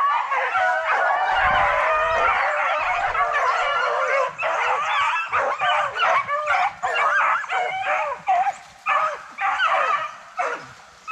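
A pack of beagles baying as they run a rabbit, many voices overlapping at first, then thinning to separate bawls with short gaps from about four seconds in.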